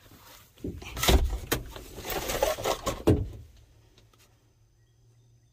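Hands rummaging through a pile of car parts and pulling out a rubber V-belt in its cardboard sleeve: knocks, clicks and scraping for about two and a half seconds, starting just under a second in.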